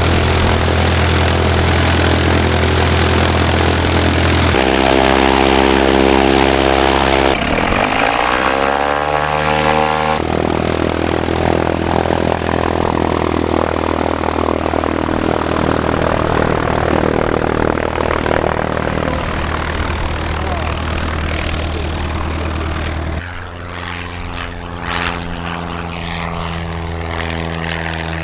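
Single-engine propeller plane's piston engine running steadily as it taxis, heard in several cut-together clips. About eight seconds in, the engine note climbs steeply as the engine is brought up to full power. Near the end the plane is airborne and farther off, a steadier, quieter drone.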